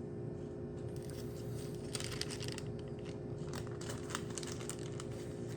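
Plastic food packaging crinkling and tearing as it is opened, in irregular crackly rustles starting about a second in, over a steady low hum.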